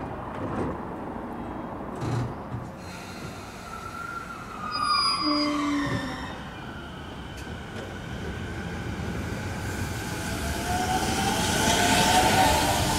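Electric commuter train, a Toei 10-300 series, shutting its doors with brief sounds around five seconds in, then pulling out of the station, its traction-motor whine climbing in pitch and growing louder as it gathers speed.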